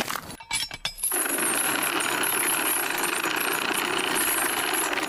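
A few short knocks, then from about a second in a loud, steady mechanical buzzing rattle like a running engine, with a thin high whine over it: a sound effect in a cartoon's soundtrack.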